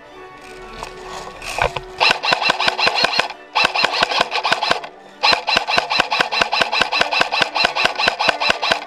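Airsoft electric rifle firing three fully automatic bursts of rapid, evenly spaced shots, the longest near the end.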